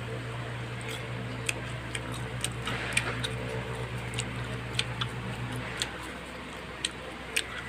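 A steady low hum that cuts off about six seconds in, with faint clicks and ticks at irregular spacing throughout.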